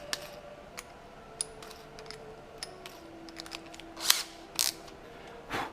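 Scattered small clicks and a few short rattling bursts from a drill and bits being handled between holes, with no motor running.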